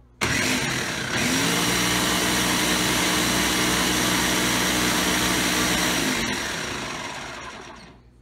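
Ninja countertop blender switched on, blending a coffee, almond milk and protein powder drink: the motor starts suddenly, speeds up about a second in and runs at a steady whirr. About six seconds in it is switched off and winds down to a stop.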